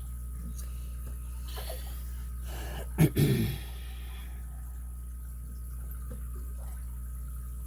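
A person sneezes once about three seconds in, after a short breath in, and the burst fades quickly. A steady low hum runs underneath.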